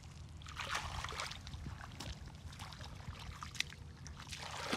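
Bare feet treading and sloshing through shallow muddy water, in uneven splashy bursts with a few short sharp splats.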